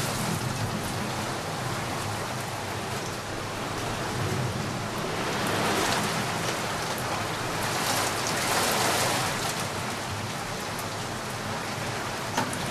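Very heavy rain pouring steadily, with scattered drop impacts and swelling a little stronger at times.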